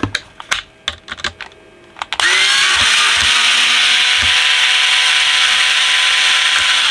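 Light metal clicks and taps of tools on screws, then about two seconds in a small cordless electric screwdriver spins up and runs steadily, backing out a thread-locked screw from the amplifier chassis.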